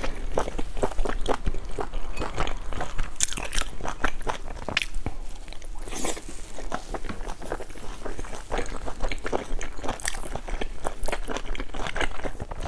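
Close-miked eating of large dumplings: biting and chewing, with many small, irregular wet mouth clicks.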